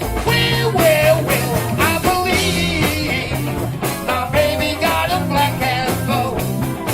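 Live blues band playing an instrumental break: a lead solo with bending, wavering notes over a steady bass line and drums.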